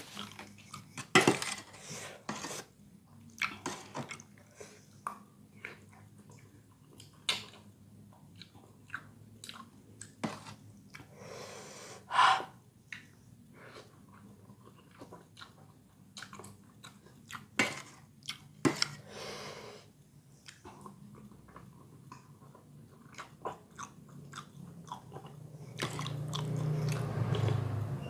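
Close-up chewing of bakso Malang meatballs and noodles in spicy soup, with scattered short clicks of a spoon against the bowl.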